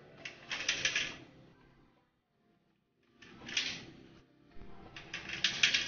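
Plastic Connect 4 discs dropped into the upright grid, each rattling down its column: three short bursts of rapid clicks, about half a second in, at about three and a half seconds, and near the end.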